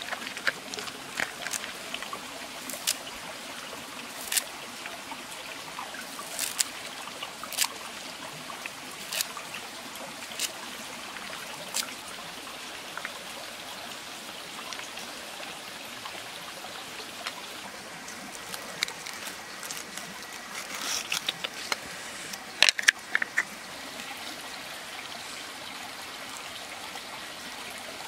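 Wooden pestle knocking in a clay mortar of wet crushed peanuts and chilli, sharp taps every second or so, with a quick cluster of knocks about twenty seconds in. Under it a steady rushing background.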